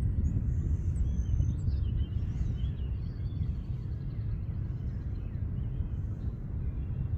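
Low, steady rumble of a distant jet airliner in flight, with small birds chirping and a rapid bird trill in the middle.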